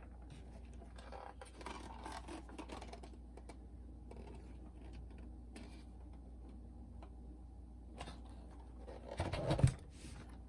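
Faint scratching and clicking of hands and a tool working on the opened boombox's plastic parts, with a louder knock and rustle about nine seconds in.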